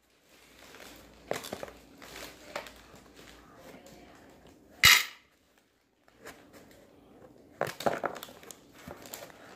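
Plastic clicks and rattles from a toy coin-operated capsule machine being handled, with one sharp, loud click about five seconds in.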